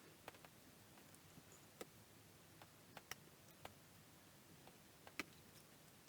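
Near silence broken by a few faint, irregular clicks and taps from small parts being handled and fitted by hand, most of them around two to three seconds in and one near five seconds.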